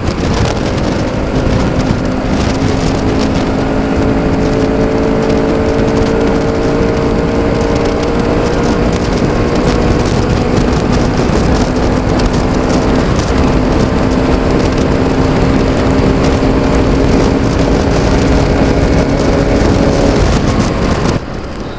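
Bajaj Pulsar RS200's single-cylinder engine, still on its stock exhaust, running at a steady cruise while the bike is ridden, with heavy wind rush on the action camera's microphone. Near the end the engine note and wind fall away as the bike slows down.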